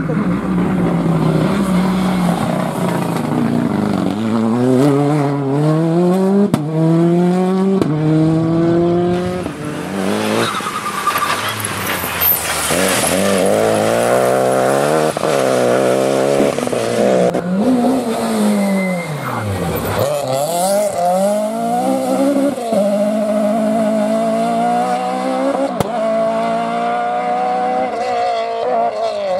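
Rally cars at full throttle one after another, engines revving up through the gears with a sudden drop in pitch at each upshift.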